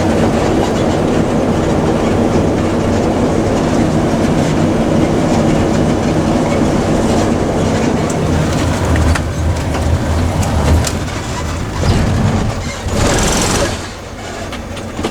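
Steady engine and road noise heard from inside a moving vehicle, a low rumble that grows heavier about two-thirds of the way through. A brief hissing rush comes near the end before the noise drops back.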